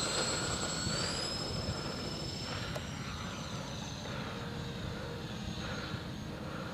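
ParkZone Mosquito RC model plane's twin electric motors whining in flight: a high tone that rises in pitch about a second in and eases off a little. Wind rumbles on the microphone underneath.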